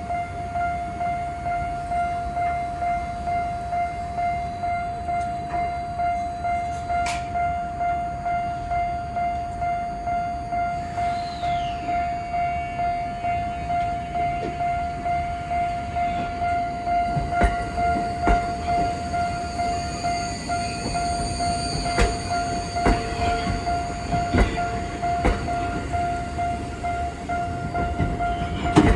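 Level crossing warning bell ringing one steady high tone that pulses evenly a few times a second. From a little past halfway, sharp irregular knocks of a Ginza Line train's wheels on the rails join in.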